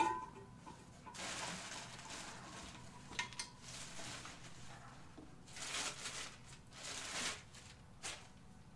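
A metal clank with a short ring as an exhaust part is set down, then plastic wrapping crinkling and rustling in several bouts as stainless-steel catback exhaust pipes are pulled out of a cardboard box, with a few light metal knocks.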